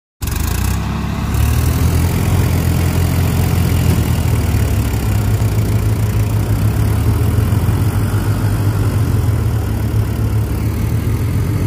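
Diesel farm tractor engine running hard under load as it hauls a heavy trolley, a loud, steady low engine note.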